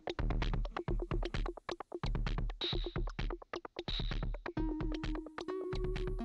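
Background electronic music with a fast, steady beat and held synth notes.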